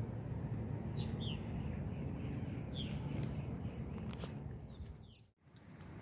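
Creek water running steadily, with birds giving short chirps over it. The sound fades out and back in briefly near the end.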